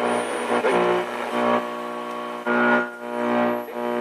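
Music from an AM broadcast station playing through a 1957–59 Plymouth Mopar 855 AM push-button car radio, with no deep bass: the set is receiving and working.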